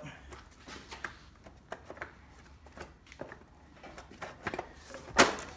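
Plastic blower housing of a Briggs & Stratton twin-cylinder engine being worked down over the engine: scattered light clicks and knocks of plastic against the engine as it is shifted into line, with one louder knock near the end.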